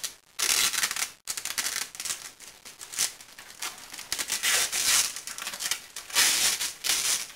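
Tape being pulled off a roll in several short rips, about one a second, with rustling of cardboard and bedsheet as it is pressed on.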